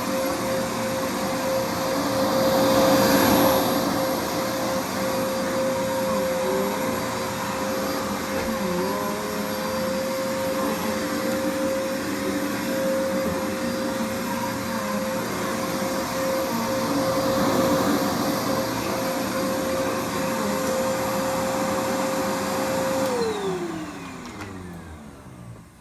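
Bissell vacuum cleaner running with a steady high motor whine over the rush of air, its brush roll always on, swelling louder twice as it is worked. Near the end it is switched off and the whine falls away as the motor spins down.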